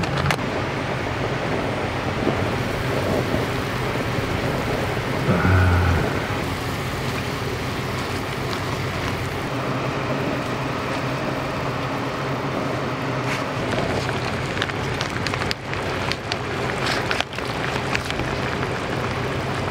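Jjamppong, a spicy seafood noodle soup, boiling hard in a pot on a camp gas burner: a steady bubbling hiss. There is a brief low knock about five seconds in and a few small pops near the end.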